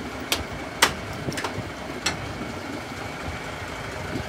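Four or five sharp clicks and knocks, the loudest about a second in, as the cab door of a Volvo lorry is opened and someone climbs into the cab, over steady background noise.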